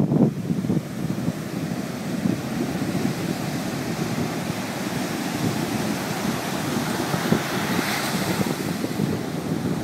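Ocean surf breaking and washing up a sandy beach: a steady rush of waves, growing hissier around eight seconds in, with wind buffeting the microphone.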